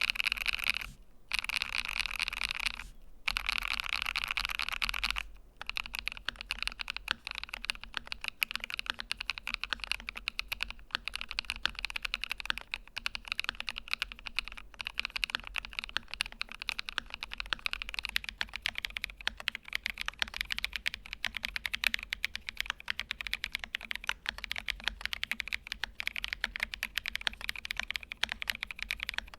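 Typing on an AKKO x VARO M3 Pro Cream gasket-mount mechanical keyboard. The first five seconds are a dense run of very fast keystrokes with two brief pauses, followed by steady typing of many separate key presses.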